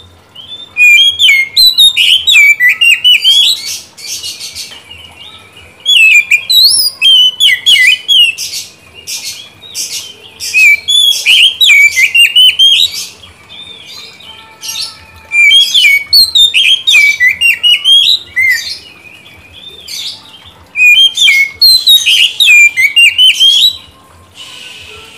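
Male Oriental magpie-robin (kacer) singing loudly in about five bursts of fast, varied whistles and chattering phrases, with short pauses between them.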